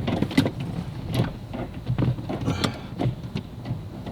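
Hand tools working on metal car parts: a string of irregular clicks and knocks, typical of bolts being fitted and tightened on a steering rack and subframe.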